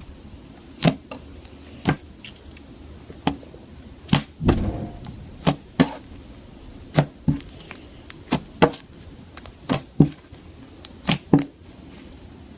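Slime being handled, giving a string of sharp pops and clicks at an uneven pace of about one a second, with a longer squelch about four and a half seconds in.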